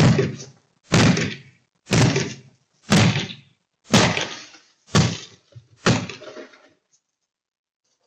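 Seven heavy blows about a second apart as someone smashes the windows of a Porsche Macan, each strike landing hard and trailing off over about half a second.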